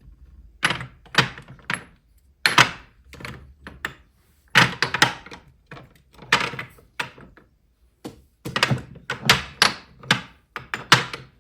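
A quick, irregular run of knocks and thunks: objects being handled and set down on a hard surface.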